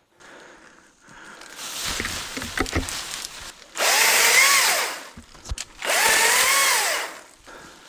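ECHO DCS-2500T cordless top-handle chainsaw running in two loud bursts of about a second each, its electric motor pitch rising then falling each time. Quieter knocks come before the bursts.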